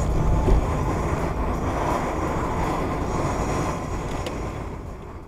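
A car driving slowly along a street, heard from inside its cabin: a steady rumble of engine and tyres. The sound eases off near the end.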